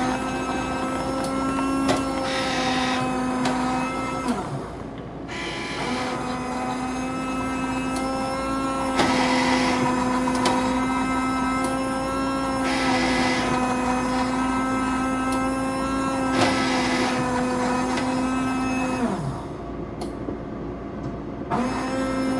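Automatic drinks machine dispensing hot chocolate: its motor runs with a steady hum, stops briefly about four seconds in, runs again for about thirteen seconds and winds down with a falling pitch, then starts once more near the end and falls away again. Liquid pours into a paper cup, with a few clicks from the machine.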